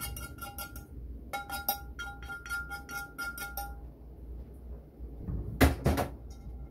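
Rapid, even metallic clinking with a ringing tone, about six clinks a second, which stops about three and a half seconds in. Two loud knocks follow near the end.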